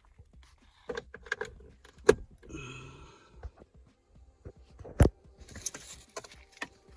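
Handling a small 12-volt air inflator and its plastic parts: an irregular run of clicks, knocks and rattles, with two sharp knocks about two and five seconds in and a short scraping rustle between them.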